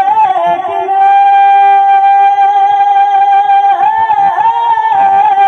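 A man singing a naat unaccompanied through a microphone. About a second in he holds one long high note for nearly three seconds, then breaks into wavering ornamented turns.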